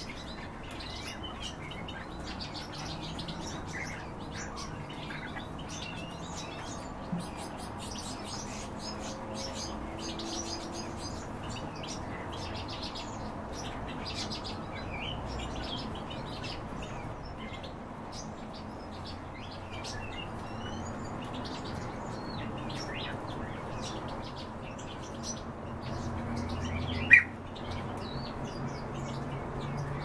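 Pet birds chirping and twittering steadily in many short high calls, with one sharp, louder sound near the end.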